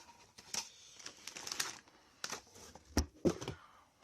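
Irregular clicks and knocks from a motherboard's cardboard box and packaging being opened and handled, with the loudest knock about three seconds in.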